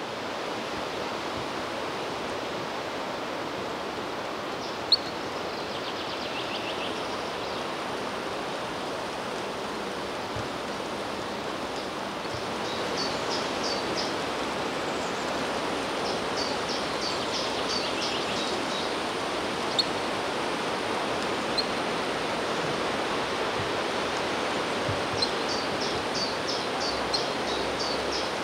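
Steady rushing outdoor background noise at a pond, with three short runs of rapid, high-pitched bird notes, each a quick series of about half a dozen notes, the last near the end. A couple of sharp clicks stand out.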